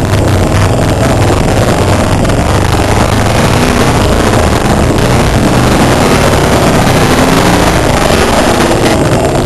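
IMCA dirt modified race car's V8 engine running loud and steady, heard from inside the cockpit with a heavy rush of noise over it.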